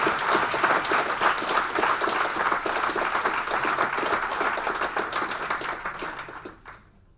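A large seated audience applauding, the clapping fading away near the end.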